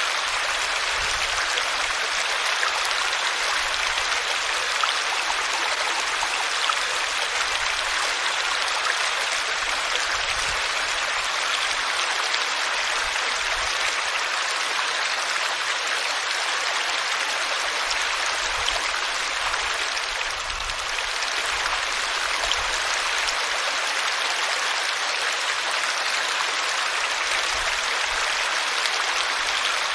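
Water flowing steadily in a stream, an even rushing and babbling.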